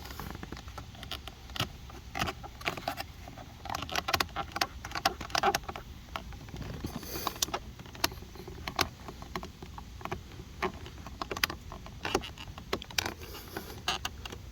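Trim tool prying at a clipped plastic door-trim piece: irregular clicks, taps and short scrapes of plastic, bunched in two busier spells.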